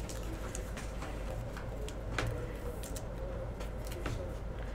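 Light clicks and rustles of trading cards being flipped through by hand, over a steady low hum.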